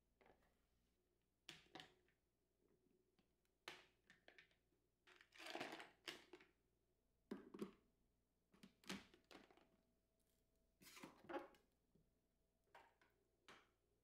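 Faint handling sounds of clear plastic fridge baskets and storage containers: a cloth rubbing over the plastic and soft knocks as containers are set down, every second or two.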